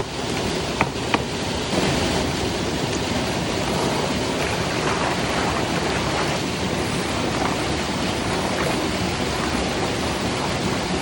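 Steady rush of water falling and running, as at a waterfall, with two short sharp clicks about a second in.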